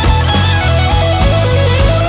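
Blues-rock band music: an electric guitar plays a lead line of stepping and bending notes over a steady drum beat and bass.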